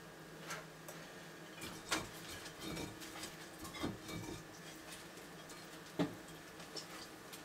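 Dumeril's monitor lizard moving over loose substrate: faint rustling and scattered sharp little clicks of claws on the ground, the loudest click about six seconds in.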